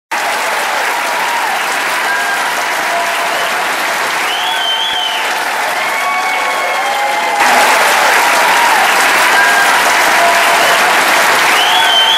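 Audience applauding, with a few shouts and whoops rising and falling over the clapping. About seven seconds in, the applause suddenly gets louder.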